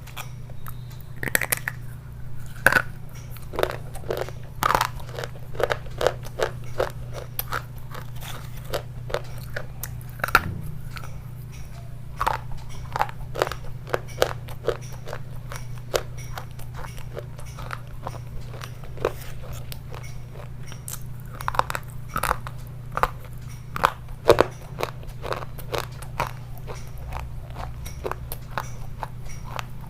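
Someone biting and chewing pieces of dry clay (mitti), giving irregular sharp crunches, with louder clusters of bites now and then, over a steady low hum.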